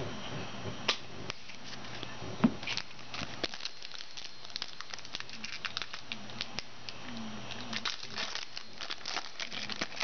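Trading-card foil pack wrapper crinkling and tearing as it is opened by hand, with small clicks and crackles of cards and wrapper being handled, and one sharper tap about two and a half seconds in.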